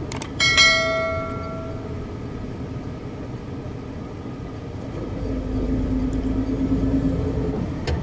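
A 10-wheeler truck's engine drones steadily from inside the cab. About half a second in, a single metallic clang rings out and fades over a second or so. Around five seconds in, the engine grows louder with a steady hum for a couple of seconds.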